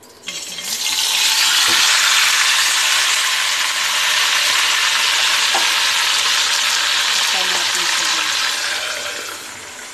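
Marinated chicken frying in hot cooking oil in a small pan: a loud sizzle that starts abruptly as the chicken goes into the oil, about half a second in, holds steady and eases off near the end.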